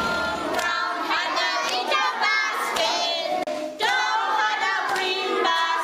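Young children singing together, with a short break a little past halfway.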